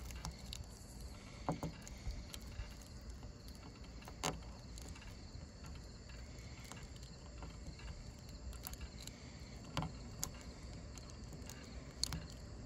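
Fingernail picking and peeling small bits of vinyl stencil off a car's glass window: a few sharp clicks and ticks scattered through, over faint steady background noise.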